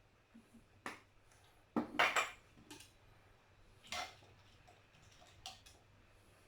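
Kitchen containers and utensils being handled: a few separate knocks and clinks, the loudest a short clatter about two seconds in.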